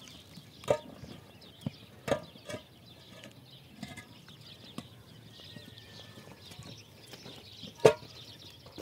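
Hollow concrete blocks set down on top of one another, making a handful of sharp knocks of block on block, the loudest near the end.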